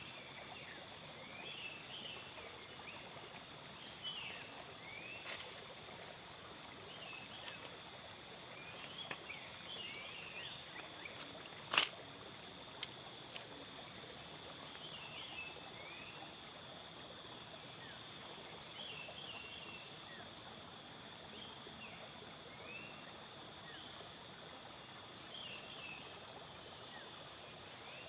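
Dense chorus of insects in a natural setting: a continuous high-pitched trill, with groups of short evenly pulsed calls and clusters of brief chirps recurring every few seconds. One sharp click about twelve seconds in.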